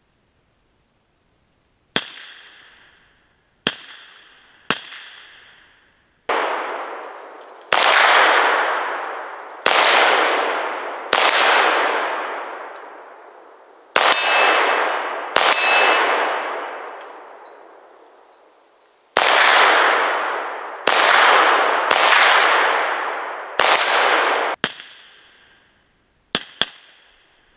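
Arsenal SLR-104FR, a semi-automatic 5.45x39mm AK-74-pattern rifle, firing about sixteen single shots at an uneven pace, each trailing off in a long echo. Several of the shots carry a metallic ringing clang.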